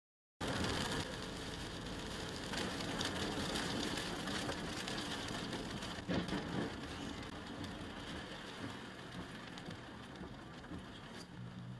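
A car driving on a wet highway in the rain, heard from inside through a dash camera: steady tyre hiss on wet pavement and rain on the windshield, cutting in suddenly. A short thump comes about six seconds in.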